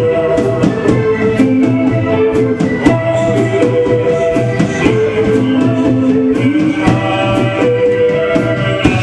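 Live band playing a song: a drum beat of regular sharp hits under held melody notes that change pitch every second or so.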